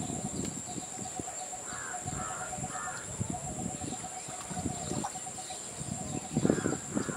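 Birds calling in the open air: three short calls in quick succession about two seconds in and two more near the end, over a steady high background drone.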